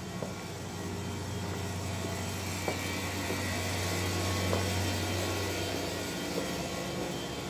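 Steady low hum and whir of running electric machinery, swelling slightly about halfway through, with a few faint knocks.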